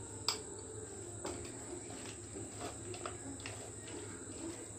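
Soft wet squelching and a few light clicks of a hand mixing raw chicken pieces with ginger-garlic paste in a bowl. A steady high-pitched trill of crickets runs underneath.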